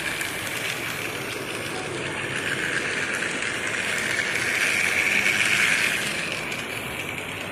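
Toy train set running: the locomotive's small motor whirring and its plastic wheels rattling along the plastic track, a steady high whir that grows louder for a couple of seconds past the middle as the engine comes close.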